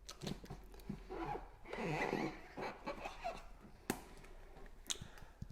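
Faint handling noises with a few sharp clicks, the clearest two near the end, as of a handheld plastic device being moved and set down.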